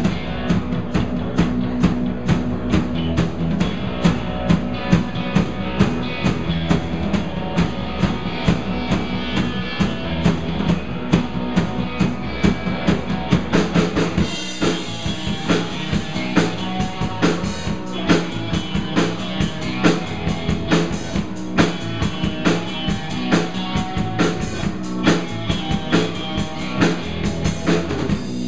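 Live band playing instrumental rock: a drum kit keeping a steady beat under electric guitars, with a cymbal crash about halfway through as the low end briefly drops away.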